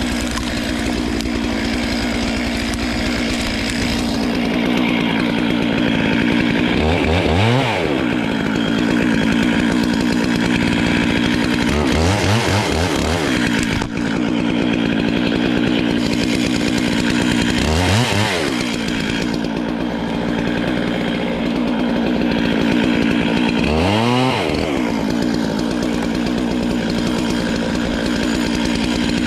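Stihl MS 441 two-stroke chainsaw running at high revs while cutting wood. Four times, about every five or six seconds, the revs drop briefly as the throttle is let off, then climb straight back.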